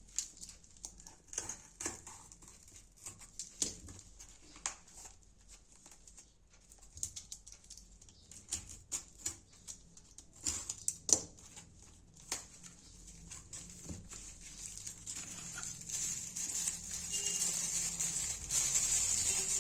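Irregular clicks, taps and light rustles of packaging and a product being handled during an unboxing. A hiss grows louder near the end.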